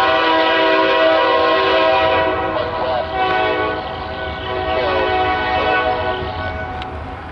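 Diesel locomotive air horn sounding one long, steady blast of several notes at once. It dips briefly about three seconds in and stops near the end.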